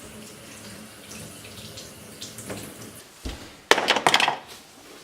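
Water running from a tap into a sink while a dishwasher part is rinsed under it, with a knock a little past halfway and a loud spell of splashing just after.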